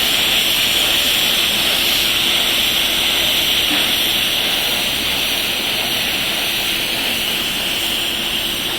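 Electric welding arc on stainless steel, hissing steadily without a break, over a faint steady hum.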